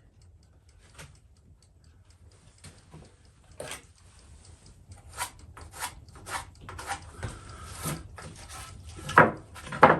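Cedar boards being handled and set against each other on a work surface: a string of wooden knocks and light scrapes, sparse at first, then more frequent and louder, with the sharpest knock near the end.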